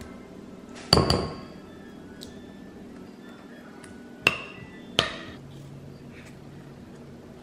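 Metal spoon clinking against a ceramic bowl: a sharp double clink about a second in, then two single clinks around four and five seconds in, each ringing briefly.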